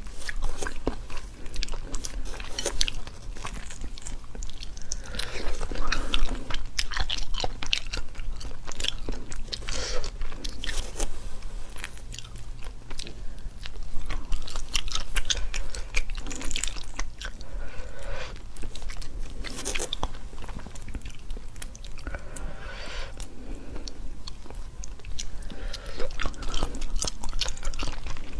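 Close-miked crunching and chewing of spicy whole shrimp, shell and all, with shells crackling as they are pulled apart by hand. The crackles come thick and irregular throughout.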